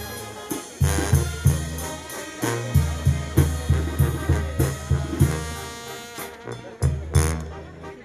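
Mexican banda (brass band) playing live: trumpets and trombones over a pounding bass drum, with a short break in the beat about six seconds in.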